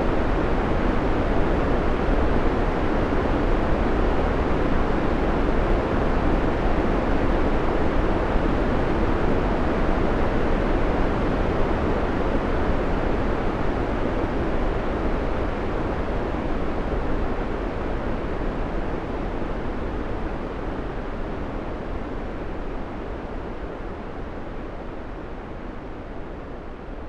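Steady white-noise background track, an even low rush with no rhythm or tones, fading gradually over the second half.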